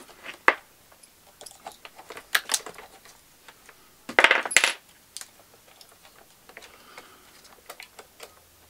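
Scattered clicks and clinks of small hard parts being handled at a workbench: battery cells, wires and plastic pieces of an opened robot vacuum. About four seconds in there is a louder clatter ending in a short metallic clink.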